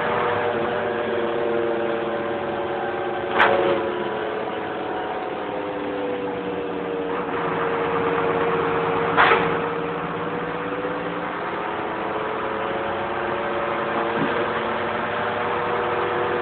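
A vehicle engine running steadily at idle, its pitch drifting slightly, with two sharp clicks, one about three seconds in and one about nine seconds in.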